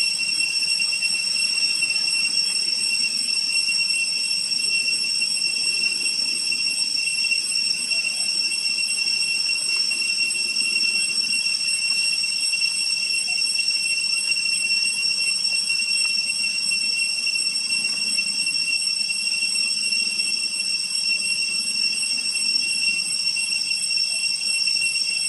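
A steady, high-pitched whistling tone with several overtones, unchanging throughout, over a faint low murmur.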